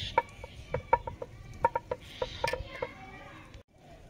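Domestic fowl clucking: a run of short, clipped clucks, about a dozen at uneven intervals, thinning out near the end.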